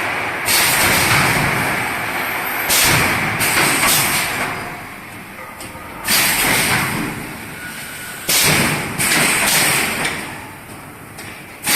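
3D EPS panel wire-mesh welding machine working its cycle. Sudden loud bursts of noise come every one to three seconds, each fading over about a second, over a steady machine din.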